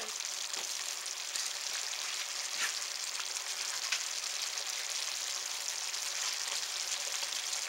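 Cornstarch-thickened onion-and-mushroom gravy with beef patties sizzling and bubbling in a skillet turned up to a boil: a steady hiss with a few faint ticks.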